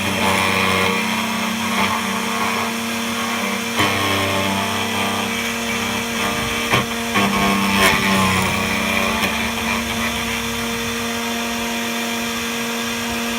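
DEFU 368A key cutting machine running, its motor humming steadily while the cutter mills a laser-cut key blank, with a few sharp clicks of the cutter and carriage along the way.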